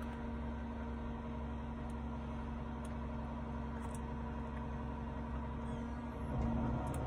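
Steady hum of a car idling, heard from inside the cabin, with a low rumble and a few steady droning tones; it grows a little louder near the end.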